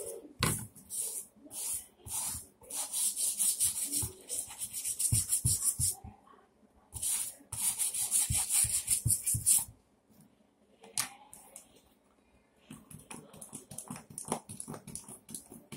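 A brush scrubbing a red Nike Huarache sneaker in quick back-and-forth strokes: two spells of a few seconds each with a short pause between, then fainter scrubbing near the end.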